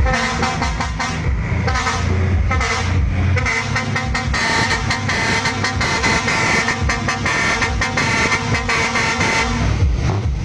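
Truck horns honking over and over in short, pulsing blasts, with the engines of several trucks running underneath.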